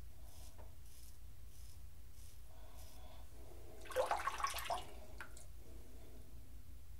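Faint scrapes of an Ikon 101 open-comb safety razor cutting beard stubble, then about four seconds in a short burst of water splashing as the razor is rinsed in the sink.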